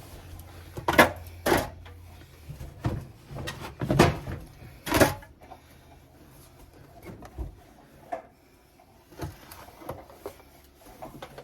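Refrigerator drawer and items being handled: a run of sharp knocks and clatters, five loud ones in the first five seconds and softer, scattered ones after.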